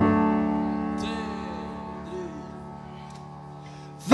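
A held keyboard chord slowly dying away, with a faint wavering note over it. The full band comes back in loudly right at the end.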